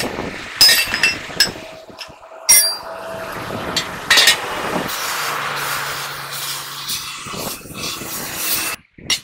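Sledge hammer blows on a steel driver plate, driving a bearing race into a truck wheel hub: several ringing metal strikes over the first four seconds or so. Then the steady hiss of an oxy-acetylene torch heating the hub, stopping abruptly near the end.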